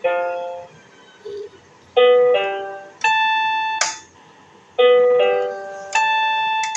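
Piano notes played one at a time, each struck and dying away: a short phrase of a lower note pair rising to a higher held note, played twice. This is the high-pitch version of a simple three-key tune.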